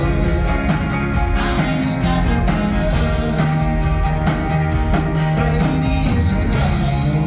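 Live folk-rock band playing the closing bars of a song, guitars over a steady drum beat.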